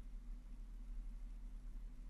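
Jeep Wrangler JK engine running at low revs while crawling, a faint, steady low rumble.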